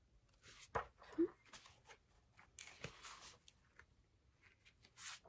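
Large glossy photobook pages being turned by hand: several soft paper swishes and light clicks as a page is lifted and laid over, about a second in, again around three seconds and near the end. A brief low-pitched blip a little after one second is the loudest sound.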